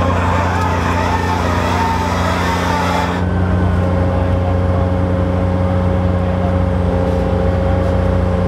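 Robosaurus, the car-eating robot machine, running with a steady low engine drone. A hiss lies over it for the first three seconds and then cuts off suddenly.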